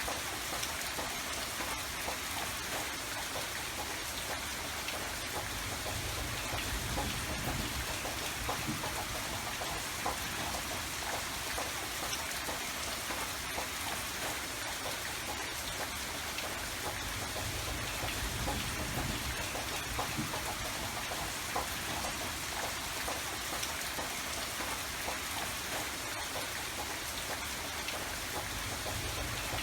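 Steady rain falling, with the patter of individual drops on a surface and a low rumble that swells and eases now and then.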